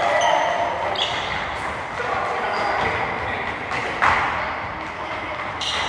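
Soccer balls being kicked and bouncing, with one sharp thud about four seconds in.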